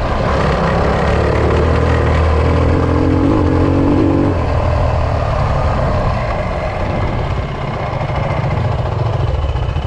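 Yamaha WR250F four-stroke single-cylinder enduro engine running under way on a gravel track, easing off about six seconds in as the bike slows.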